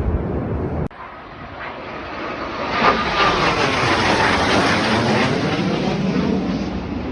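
Snowbirds' CT-114 Tutor jets passing overhead. After a sudden break about a second in, the jet noise swells quickly and stays loud, with a whine falling in pitch as the aircraft go by.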